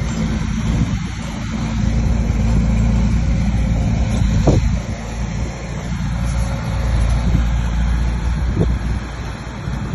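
A bulldozer's diesel engine running steadily under load, with two brief knocks, one about halfway through and one near the end.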